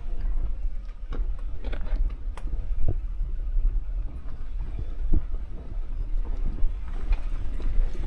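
Car driving over a rough, rocky unpaved road: a steady low rumble with irregular knocks and thuds as the car jolts and strikes stones, a loud 'thak thak' knocking.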